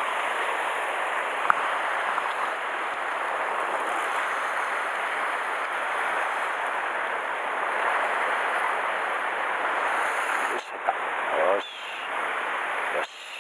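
Steady wash of sea surf on a rocky shore, with one sharp click about a second and a half in.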